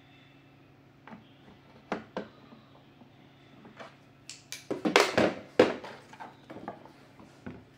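Clicks, knocks and scraping of hand tools working on a vacuum cleaner's plastic housing, with a dense run of louder rattling knocks about five seconds in.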